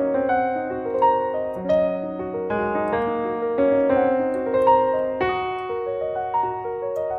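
Background music: a gentle piano melody with chords, notes changing every half second or so.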